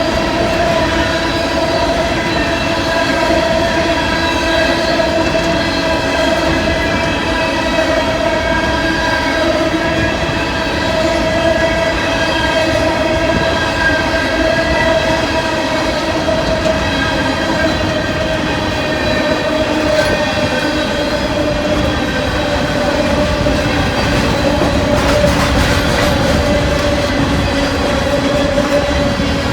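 Freight train cars rolling past close by, with a steady high squeal held the whole time, its pitch sinking slightly near the end.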